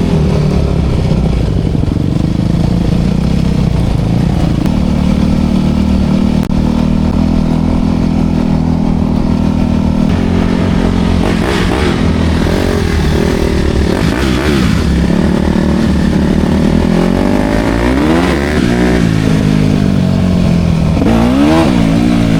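Dirt bike engine running steadily under way, its revs rising and falling a couple of times near the end.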